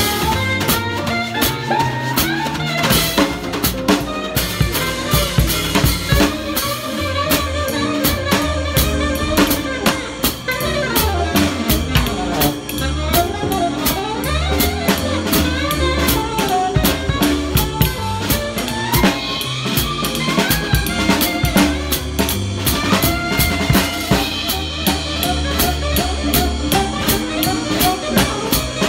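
Jazz drum kit played with sticks close up, with quick snare and cymbal strokes throughout, over upright bass and a moving melody line from the rest of the band.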